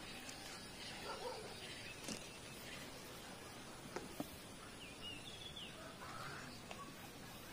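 Faint outdoor background noise with a few short bird chirps about five seconds in, and a few light clicks scattered through.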